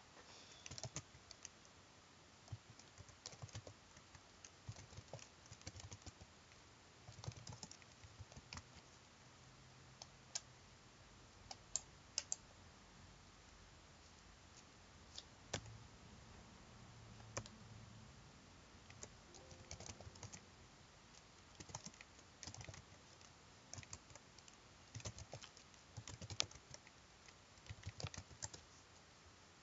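Faint typing on a computer keyboard: irregular bursts of keystrokes with short pauses between them.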